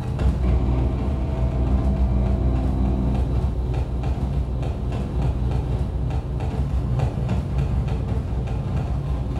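Live harsh noise / power electronics from a modular synthesizer and effects rig: a loud, unbroken wall of electronic noise, heaviest in the bass. A few steady droning tones ride on top for the first three seconds or so.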